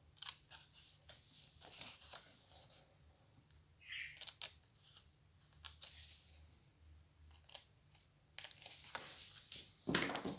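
Small scissors snipping through cardstock in short cuts, with light paper handling between the snips and a louder knock near the end.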